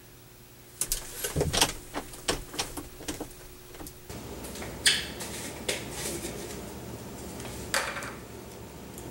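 A locked door being tried: the knob rattled and clicking, with a quick run of sharp clicks and knocks for about three seconds. After that, a few scattered knocks and clicks over a steady room hum.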